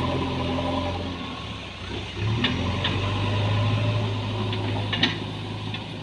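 JCB backhoe loader's diesel engine running, its note growing louder about two seconds in as it takes more throttle. A few short sharp knocks sound over it.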